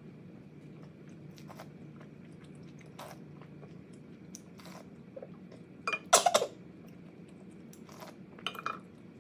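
Close-miked eating sounds: soft chewing with a few small clicks, then a loud burst of clinks about six seconds in and a smaller one near the end as a wooden spoon scoops sauce against a metal tray.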